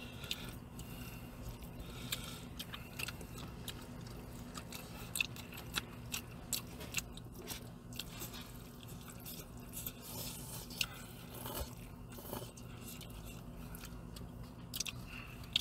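A person chewing food with the mouth close to the microphone, with scattered small clicks and scrapes of chopsticks and a plastic spoon against a plastic takeout bowl, over a low steady hum.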